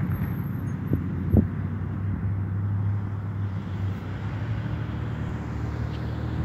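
Road traffic passing over a railroad grade crossing, a steady low engine hum with wind on the microphone, and two soft thumps about a second in.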